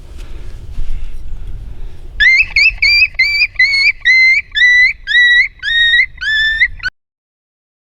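Wind rumble on the microphone, then about two seconds in a run of about a dozen high yelps in quick succession, each sliding up in pitch and levelling off: coyote distress yelps. The sound cuts off abruptly near the end.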